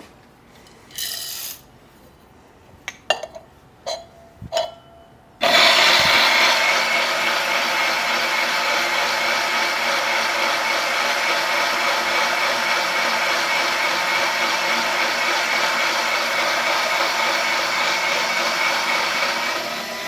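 A few light clicks and rattles of handling, then about five seconds in the Turin DM47 low-RPM single-dose electric coffee grinder starts and grinds a dose of coffee beans with a steady, even running sound. It gets a little quieter near the end.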